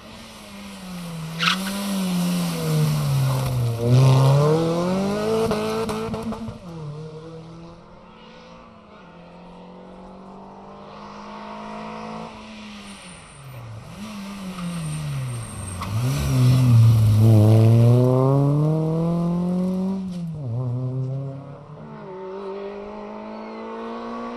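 Rally cars passing one after another at racing speed, each engine note dropping as the car slows for the bend and then climbing hard through the revs as it accelerates away. The first pass, a Renault Twingo R1, peaks in the first few seconds. A Renault Clio's pass is loudest in the second half. A third car is heard approaching near the end.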